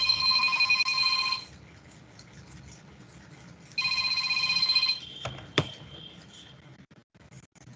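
Electronic ringing tone, like a phone's ring, sounding twice: two trilling rings of a little over a second each, about two and a half seconds apart, followed by a sharp click.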